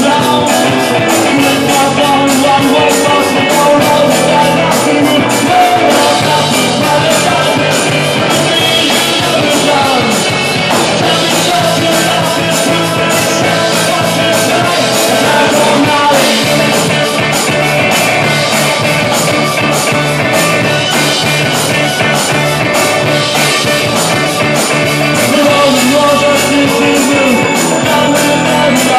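Live rock band playing through a PA: electric guitar, bass guitar, keyboards and a drum kit keeping a steady beat, loud throughout.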